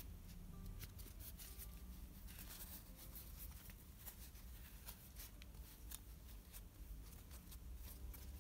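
Faint rustling and many small scratchy clicks of a crochet hook working stitches in thick T-shirt yarn, with the yarn being pulled and handled.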